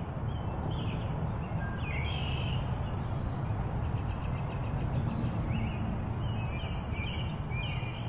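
Outdoor ambience: small birds chirping in short, scattered calls over a steady low rumble.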